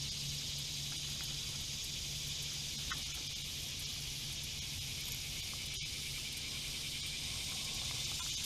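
Steady outdoor insect chorus, a high even drone, with a low steady hum underneath and a faint click about three seconds in.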